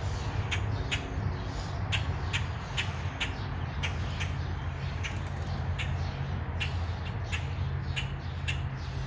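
Short, sharp animal calls repeated about two a second at uneven spacing, over a steady low hum.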